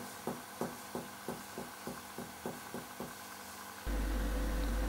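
Finger-on-finger chest percussion: a regular series of short dull taps, about three a second, mapping the left border of cardiac dullness over the third and fourth intercostal spaces. A low steady hum comes in near the end.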